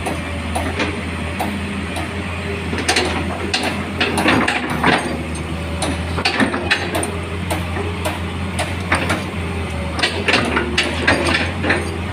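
Hitachi Zaxis 210F-5G excavator's diesel engine running steadily with a low hum, under irregular metallic clanks and clicks from the working machine, thickest a few seconds in and again near the end.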